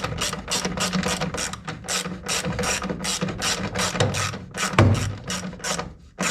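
Hand ratchet clicking rapidly as it is swung back and forth, tightening a screw, about four clicks a second.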